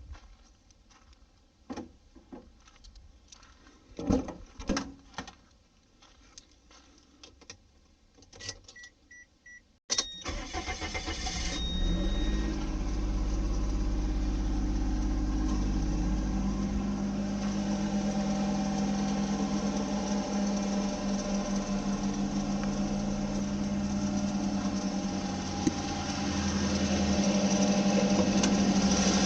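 A few knocks and clicks, then three short beeps, then the Daihatsu Mira Avy's 660 cc three-cylinder engine starting about ten seconds in. It runs on steadily with a loud hissing, scraping 'jari-jari' noise from the engine bay, the abnormal noise this engine makes on a cold start and which fades once it has been driven for about half an hour; its cause is not yet known.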